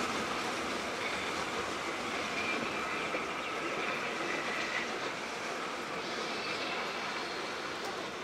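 Steam-hauled heritage passenger train rolling on the rails: a steady rumble of carriage wheels with faint thin high squealing tones, slowly fading.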